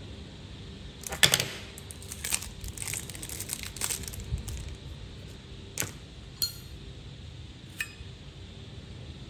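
Metal Zippo lighters being handled and clinking: a cluster of clinks about a second in, scattered lighter clinks after it, then a few sharp single clicks, one with a brief metallic ring.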